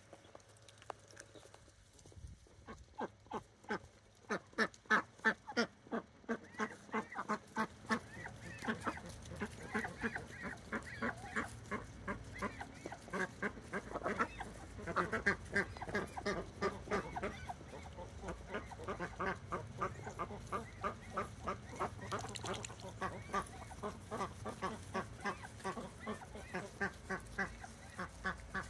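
A flock of domestic ducks quacking: a steady run of short calls, several a second, starting about two seconds in.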